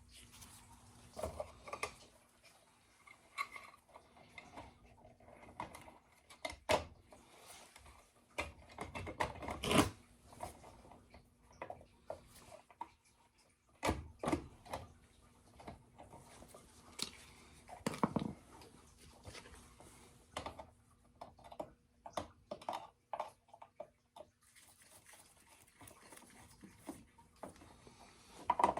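Scattered clicks, knocks and light metallic clatter of tools and burner parts being handled as an oil burner is put back together, with a faint steady hum underneath.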